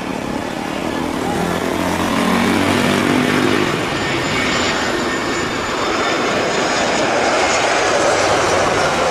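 Jet noise from an Airbus A320's CFM56 turbofan engines as the airliner passes low on short final and flares just above the runway. The sound swells over the first two seconds and then holds loud and steady. A low hum fades about four seconds in.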